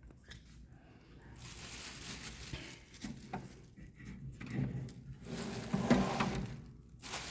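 Rustling, sliding handling noises, louder and more intense from about four and a half seconds in and peaking around six seconds, ending with a short sharp burst.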